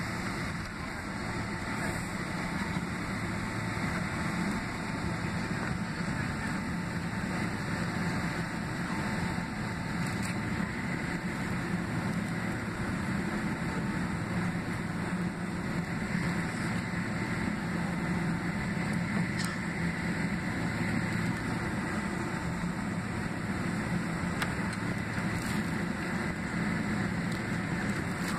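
Steady cabin noise inside a taxiing Boeing 767-300ER: its two General Electric CF6-80C2B6 turbofans run at low taxi thrust, a steady low hum under an even hiss. A few faint clicks are heard along the way.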